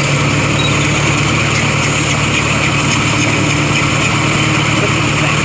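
Engine of a Chance Rides miniature park train running steadily as the train travels along, a constant low hum.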